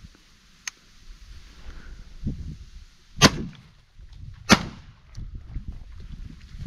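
Two close, loud shotgun shots about a second and a quarter apart, fired at ducks on the wing.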